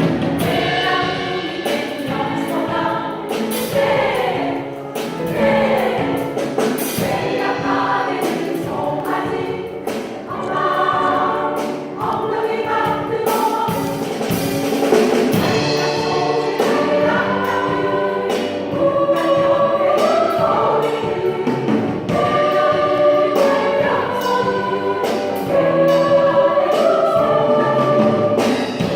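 A choir singing a song, many voices together in moving parts.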